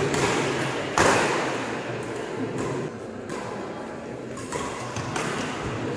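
Badminton doubles rally: rackets hitting the shuttlecock with sharp smacks roughly once a second, each dying away in the hall. The loudest hit comes about a second in.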